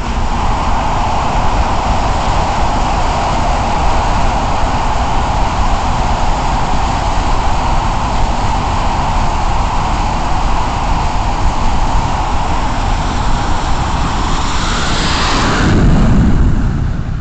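F/A-18 Hornet's twin jet engines running at full power on the catapult, a loud steady roar. About fifteen seconds in, the catapult fires and the roar swells into a rising sweep as the jet launches down the deck, then falls away near the end.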